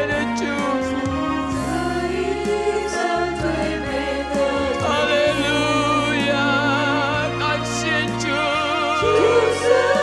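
A Mandarin worship song sung by a group of men's and women's voices into microphones over instrumental accompaniment, the voices held on long notes with vibrato.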